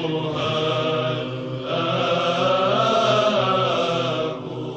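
Orthodox church chant: low voices singing a slow melody over a held drone note, fading near the end.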